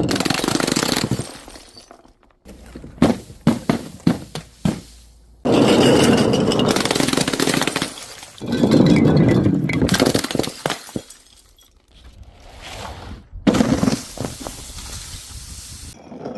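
Glass bottles breaking again and again: loud crashes of a second or two each, at the start and about five, eight and thirteen seconds in, with shards clinking and skittering between them.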